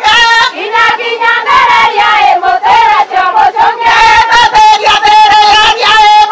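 A group of women singing a traditional Meru dance song together, in short rhythmic phrases.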